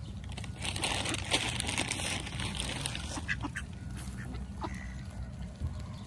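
A flock of ducks quacking and jostling while feeding on scattered bird seed. The raspy quacking and small clicks are densest in the first half, then thin out to a few scattered clicks, over a low steady rumble.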